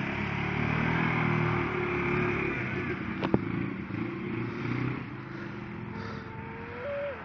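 Two ATV engines, an Arctic Cat 500 and a small Daymak 50 quad, running, loudest in the first three seconds and fading as the quads ride away. A single sharp click about three seconds in.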